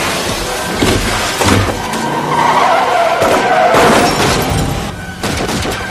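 Car tyres squealing and skidding on a wet road as cars swerve, with engines running underneath. The wavering squeal is loudest in the middle, and a few sharp knocks of impact cut through it.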